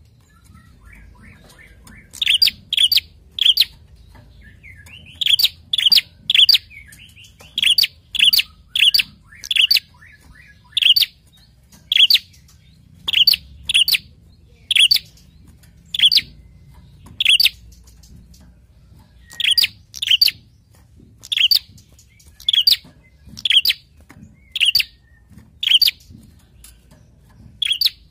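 Prenjak singing: loud, sharp, high chirps about once a second, sometimes in quick runs of two to four, starting about two seconds in.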